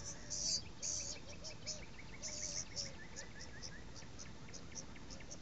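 Insects and birds chirping: a steady pulse of high insect chirps, about three a second, with a trill of short notes that falls slowly in pitch over the first few seconds.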